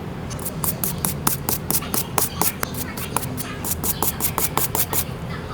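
A quick run of small sharp clicks or taps, about five a second, stopping about five seconds in, over a steady low hum.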